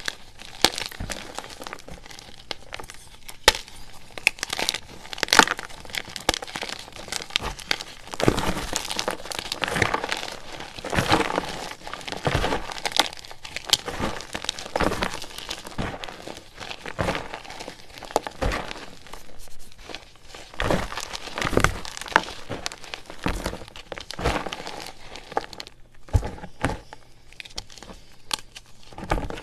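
Blocks of gym chalk crushed and crumbled by hand: an irregular run of dry crunches and sharp cracks, densest around the middle, as the chunks break down into powder.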